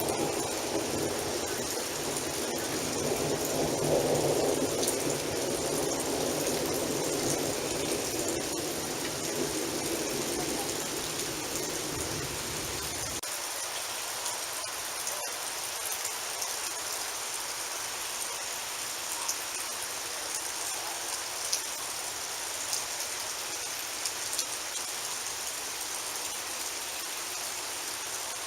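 Steady rain falling: an even hiss with scattered drips and ticks. A low rumble underneath cuts off abruptly about halfway through, leaving only the rain.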